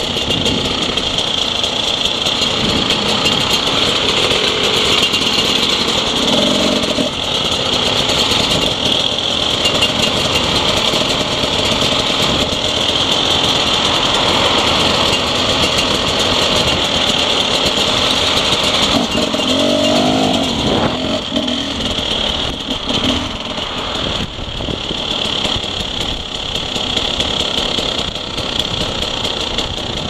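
Enduro dirt bike engines running through a road ride, with a steady high hiss throughout.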